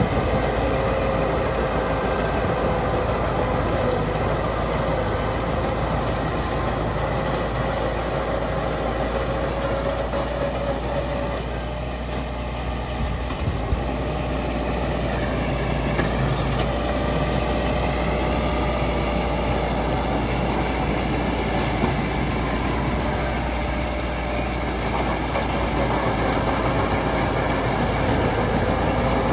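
Heavy earthmoving machine's diesel engine running steadily, with a wavering whine over it. The level dips slightly about midway through.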